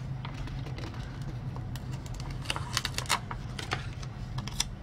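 Paper planner stickers being peeled off their backing sheet and pressed down onto the planner pages: light rustling with a cluster of crisp little clicks and crackles about halfway through and a couple more near the end.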